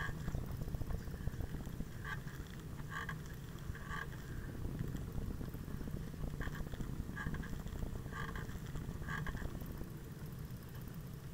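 Ride noise from a bicycle-mounted camera rolling on an asphalt path: a steady low rumble of tyre and frame vibration. Short squeaky chirps come irregularly, every second or so.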